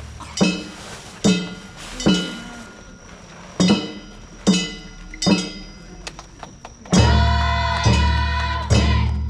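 Festival music played on struck percussion: sharp strikes, each left ringing with a metallic tone, coming roughly one a second. About seven seconds in, much heavier strikes with a deep booming body begin.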